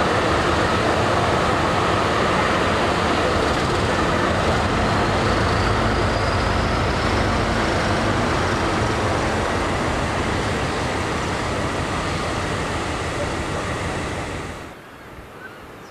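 Diesel locomotive engine running, a steady heavy rumble with a faint high whine that rises slightly in pitch. It eases a little, then cuts off suddenly about a second before the end.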